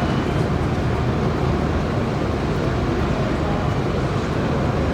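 Street ambience: a steady, even rumble of road traffic.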